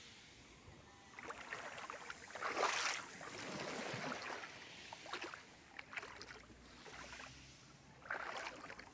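Shallow seawater sloshing and lapping in repeated surges of splashy noise, one every second or two, loudest about three seconds in.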